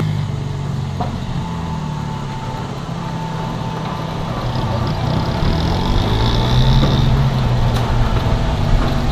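Roll-up garage door opening under its electric opener, with a steady motor hum.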